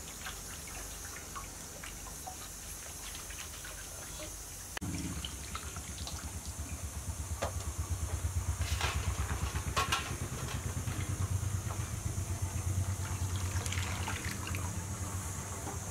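Water dripping and trickling from a colander of rinsed meat into a metal bowl; about five seconds in, the sound changes to hands washing tomatoes in a metal basin, with water splashing and poured in, over a steady low pulsing rumble.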